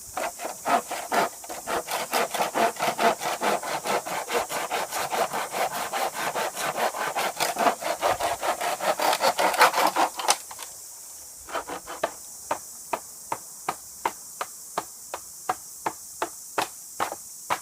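Wood being hand-sawn: quick, even back-and-forth strokes for about ten seconds, then slower, separate strokes.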